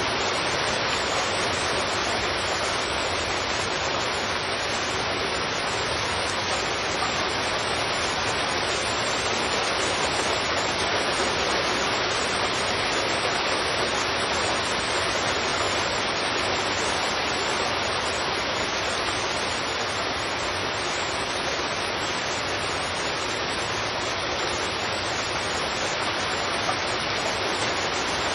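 Heavy rain falling steadily on a street, an even, unbroken hiss.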